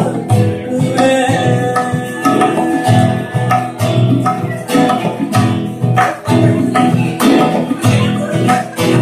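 Live acoustic band: a male voice singing a Punjabi/Sufi folk song over strummed acoustic guitar and bass, with a steady strummed rhythm.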